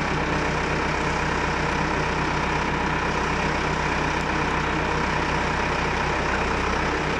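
Valmet tractor's diesel engine running steadily at an even pitch while its front-loader hydraulics tilt a home-built sack tipper sideways.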